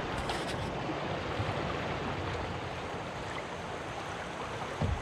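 River water running steadily, with a few faint clicks in the first half-second and a brief low thump just before the end.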